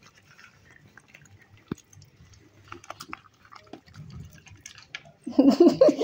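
Raccoons chewing and crunching nuts and fruit, heard as quiet scattered crunches and small clicks, with one sharp click nearly two seconds in.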